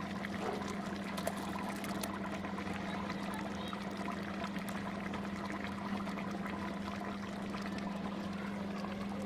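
Curry cooking in a pot: a steady bubbling hiss with scattered small pops, over a steady low hum.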